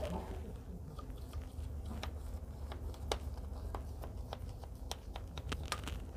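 Knife scoring besan barfi in a steel plate: irregular small clicks and crunches as the blade presses through the set fudge and touches the steel, over a low steady rumble.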